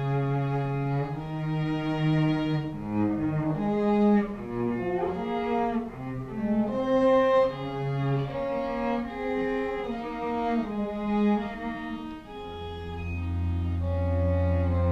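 Pit orchestra playing an instrumental passage of a stage musical: a moving melody of held notes over a low sustained bass, which drops out early and comes back in near the end.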